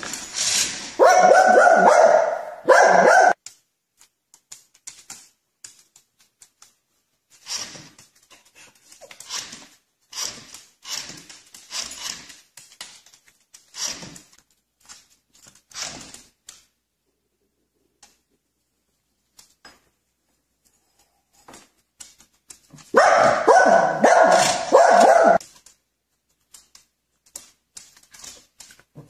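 Small white fluffy dog barking in a rapid run at the start, then again near the end, with fainter scattered sounds in between.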